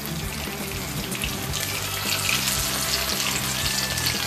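Masala-coated rohu fish pieces shallow-frying in oil in a pan: a steady sizzle with fine crackling.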